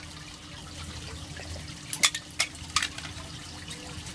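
Water jet splashing steadily into a shallow toy-fishing pool, over a low steady hum. Three sharp clicks come about two, two and a half and three seconds in.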